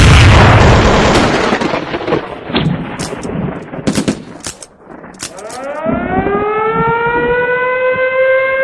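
A loud blast that dies away over several seconds, then a siren winding up from about five seconds in, rising in pitch and levelling into a steady wail.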